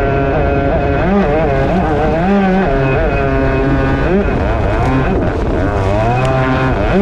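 Motorised surfboard's engine revving up and easing off again and again as the rider works the throttle through turns, the pitch swinging up and down.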